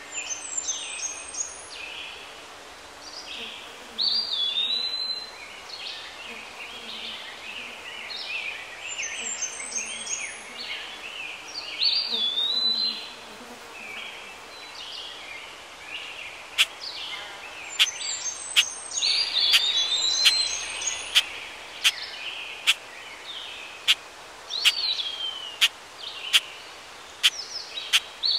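Birds chirping and calling, with repeated short swooping calls. About halfway through, sharp clicks begin, about two a second, alongside the birdsong.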